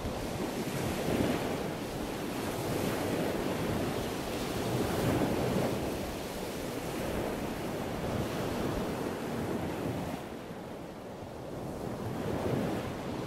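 Wind rushing over the microphone of a camera riding along a road, a steady noisy rumble that eases for a moment about ten seconds in.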